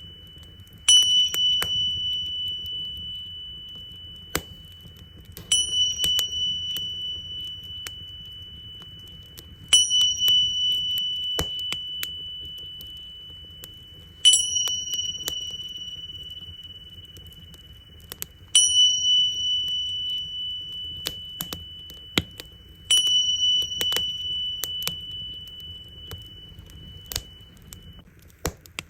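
Tingsha cymbals struck six times, about every four and a half seconds. Each strike rings a clear, high, steady tone that fades slowly. Underneath, a wood fire crackles with scattered sharp pops.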